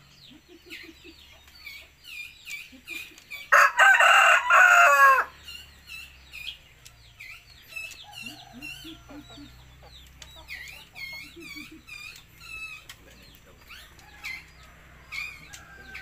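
A rooster crows once, loudly, for about a second and a half, starting about three and a half seconds in, the call dropping in pitch at its end. Small birds chirp throughout.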